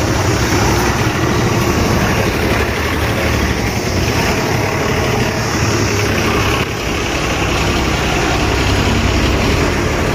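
Bus engine running close by, a loud steady engine noise.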